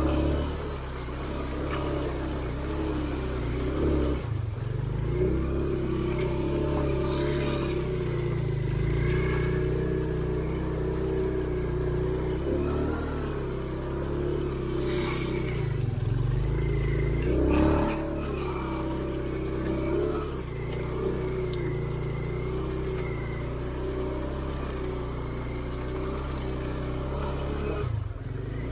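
A motor vehicle's engine running continuously, its revs dipping and rising several times, with a brief louder burst about 17 seconds in.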